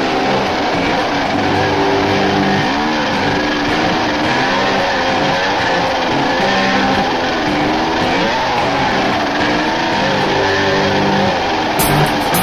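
Dirt bike engine running while riding a dirt trail, its pitch rising and falling with the throttle. A few sharp knocks come near the end.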